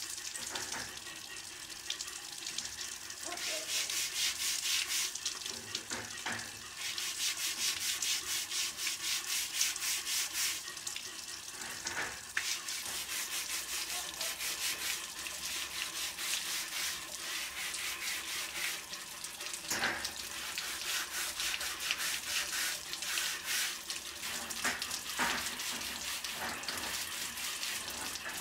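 A stiff plastic-bristled brush scrubbing a rusty fluted metal roller under running water, rapid scratchy strokes over the splash of water onto a steel grating.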